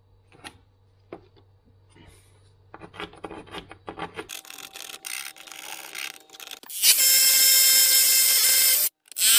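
Scraping and handling clicks, then a power drill boring into the wall for the boiler bracket fixings. The drill runs loud and steady for about two seconds, stops abruptly, and starts again near the end.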